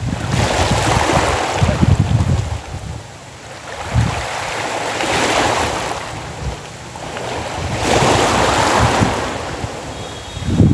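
Small sea waves washing in the shallows in three slow swells, each a couple of seconds long, with wind buffeting the microphone.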